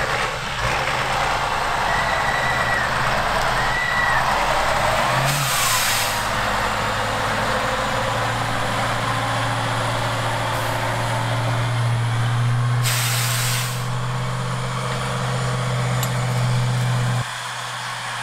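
Tatra trial truck's diesel engine working hard over rough ground, settling into a steady drone. Two short hisses of air from the air brakes come about five and thirteen seconds in.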